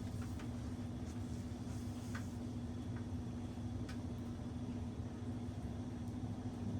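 A steady low hum, holding one constant pitch over a low rumble, with a few faint short ticks.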